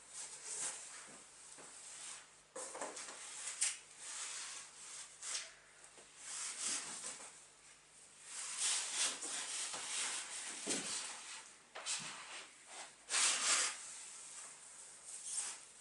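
Speaker packaging being handled: irregular rustling and scraping with a few light knocks, in bursts of a second or two.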